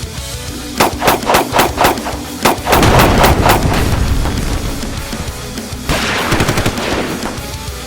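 Loud rock music with a run of sharp, rapid bangs. About five bangs come in the first two seconds, a heavier, denser volley with a deep rumble follows just after, and another quick run comes near the end.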